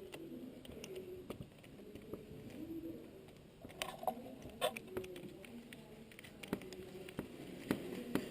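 Scattered clicks and knocks of a 10 mm socket wrench being worked on a bolt, tightening it.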